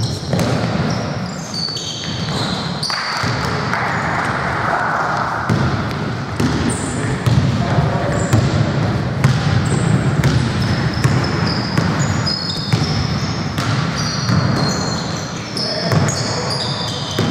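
Basketball being played on a hardwood gym court: many short, high-pitched sneaker squeaks, the ball bouncing, and indistinct players' voices.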